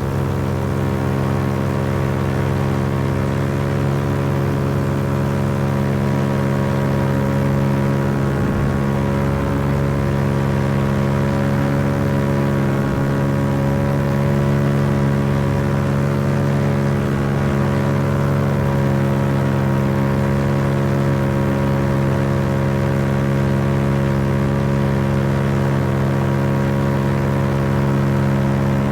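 Paramotor engine and propeller running at a steady cruise throttle, a constant drone that holds one pitch throughout.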